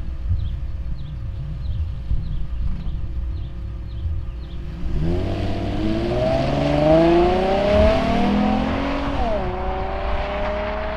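2010 Chevrolet Camaro's 3.6-litre V6 exhaust note: a low steady rumble, then about five seconds in the car accelerates hard with the pitch climbing. About two seconds before the end the pitch drops suddenly at an upshift and climbs slowly again.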